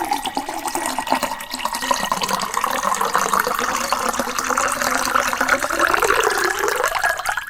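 Water being poured into a glass in a steady, continuous stream, its pitch rising gradually, until it cuts off suddenly at the end.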